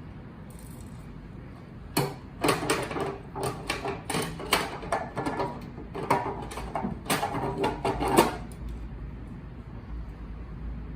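Sysform D-502 paper drilling machine being worked by hand: a run of irregular clattering knocks and clicks from about two seconds in to about eight seconds in, over a steady low hum.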